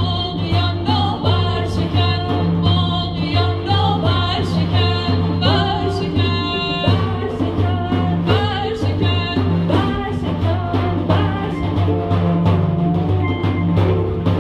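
Live music: a handpan struck with the hands in a flowing rhythm of ringing notes, with a woman singing a melody over it and a steady low drone underneath.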